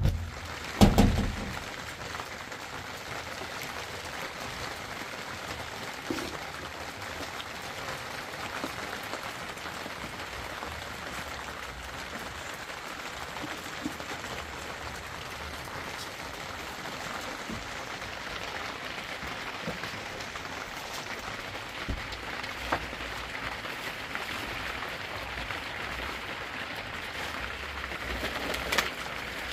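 Steady rain hissing, with a sharp knock about a second in and a few light knocks later.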